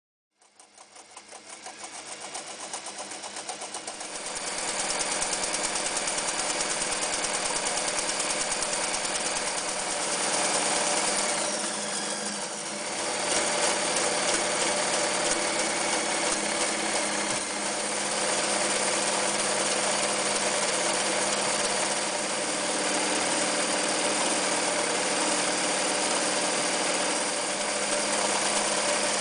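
Janome New Home 551 electric sewing machine running, starting slowly and speeding up over the first few seconds to a steady fast rattle of needle strokes, with a brief slowdown about twelve seconds in before running on.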